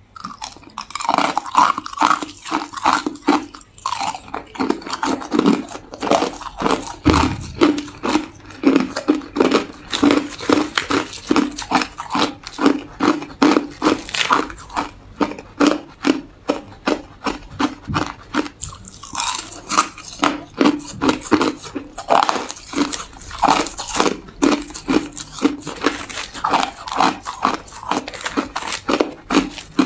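Hard ice being bitten and chewed, a steady run of crisp crunches about two a second.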